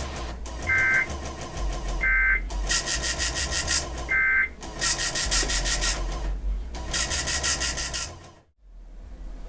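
NOAA Weather Radio SAME digital data signal: three short two-tone warbling data bursts a second or two apart, over hiss, buzz and static from the radio reception, which cuts out briefly near the end.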